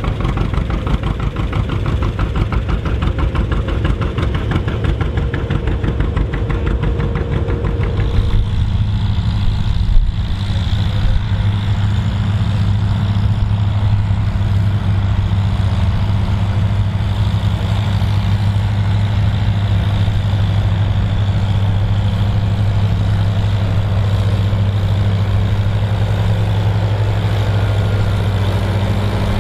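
Tandem tractor engines running. For about eight seconds there is a busy, rapid-firing engine note, then an abrupt change to a smoother, lower-pitched steady hum, with one brief loud click about ten seconds in.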